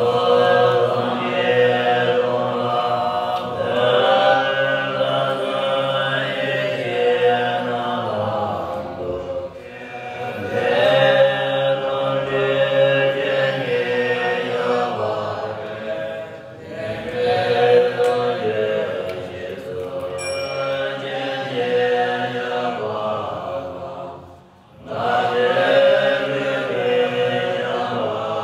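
A large group of Bon monks chanting scripture together in unison in low voices. The chant runs in long phrases broken by brief pauses, the deepest about three-quarters of the way through.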